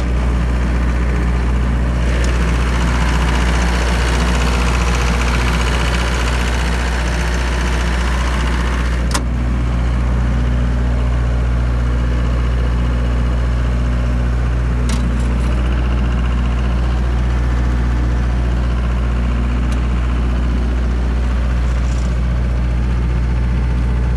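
26 kW diesel generator set running steadily under its own power, an even engine hum with strong, unchanging low tones. A single sharp click sounds about nine seconds in.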